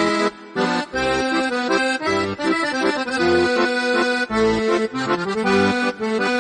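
Instrumental background music: held melodic notes over a low bass beat that falls about once a second.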